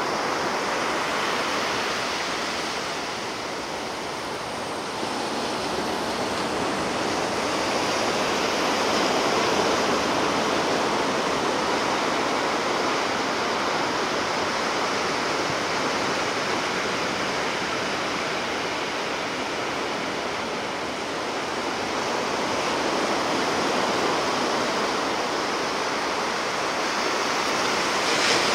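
Ocean surf breaking and washing on the shore, a continuous rushing hiss that slowly swells and eases a couple of times.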